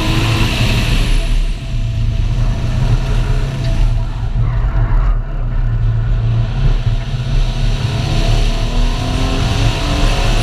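Mercury Cougar's engine running hard on an autocross run, easing off briefly around two seconds and again around five seconds in, then pulling again with rising pitch near the end. It is an engine whose worn bottom end has developed rod knock.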